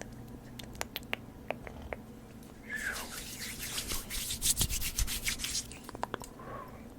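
Scattered small clicks, then a quick run of rhythmic scratching strokes, about six a second, lasting about three seconds, followed by a few more clicks.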